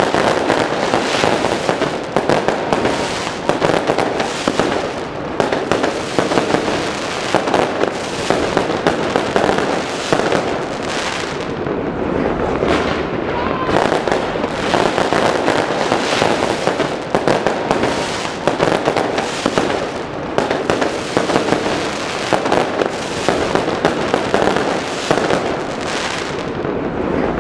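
Fireworks going off in a dense, continuous barrage of bangs and crackling pops, with a brief rising whistle about halfway through.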